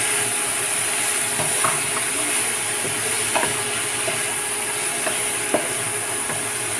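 Egg and diced vegetables sizzling in a nonstick frying pan as a wooden spatula stirs them, with a few light knocks of the spatula against the pan.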